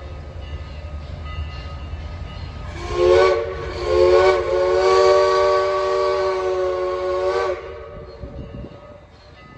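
Southern Railway 154 steam locomotive sounding its steam whistle: a short toot about three seconds in, then a long blast of about four seconds that cuts off sharply, over a low rumble of the moving train.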